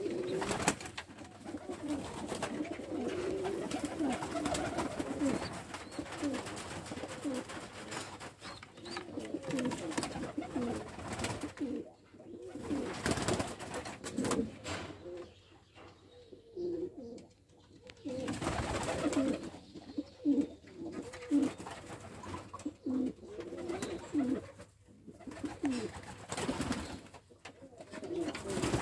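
Domestic pigeons of the Turkish dolapçı tumbler breed cooing again and again in a small loft. A few brief louder noise bursts break in among the coos.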